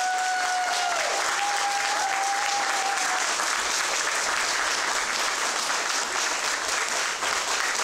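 Audience applauding steadily, with one long high cheer held over the clapping for the first three seconds or so.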